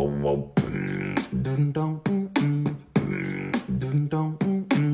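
Music with a steady beat: a quick run of short pitched notes, each struck with a sharp percussive hit.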